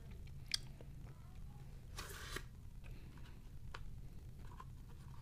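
Unpacking handling noises: a light click, then a short scraping rustle about two seconds in as the plastic quadcopter is pulled from its styrofoam tray, and another click later. A steady low hum runs underneath.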